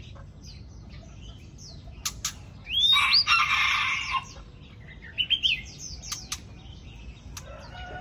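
A rooster crows once, short and high, about three seconds in; this is the loudest sound. Around it a white-rumped shama gives short chirping song notes, with a few sharp clicks between.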